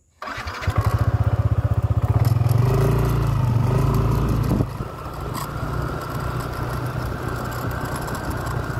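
Motorcycle engine running, cutting in suddenly: loud with a rapid pulsing beat for the first four seconds or so, then dropping to a quieter, steadier note.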